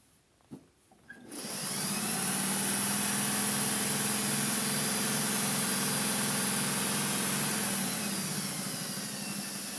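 Vintage electric sewing machine starting up about a second in and running at a steady fast stitch, easing off slightly near the end.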